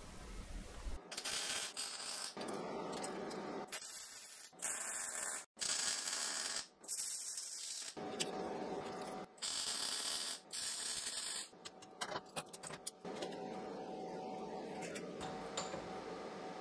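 Several short bursts of MIG welding, each about a second long, crackling and hissing as tack welds are laid on steel flat bar. They stop and start abruptly. In the second half, quieter metallic clatter follows as locking pliers and the steel workpiece are handled in a vise.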